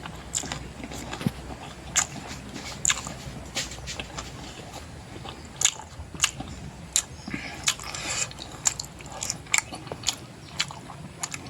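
A person chewing and eating with wet mouth smacks and crunches, irregular sharp clicks about one or two a second.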